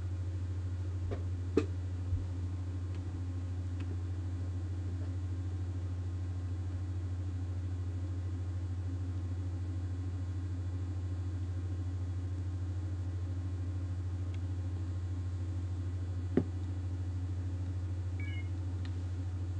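Steady low hum of room noise, with a few sharp clicks: two close together about a second and a half in, and one more near the end.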